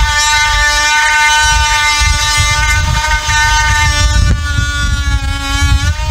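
Oscillating multi-tool running steadily as its blade cuts into a wooden post to free a piece of it. The pitch sags slightly a little past four seconds in and rises again near the end.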